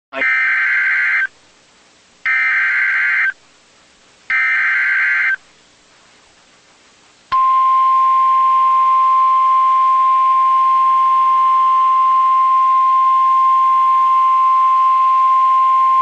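NOAA Weather Radio Emergency Alert System tones: three one-second bursts of SAME digital header data, a harsh buzzing screech about a second apart, then a single steady 1050 Hz alert tone from about seven seconds in. The 1050 Hz tone marks the alert as a warning, here a severe thunderstorm warning.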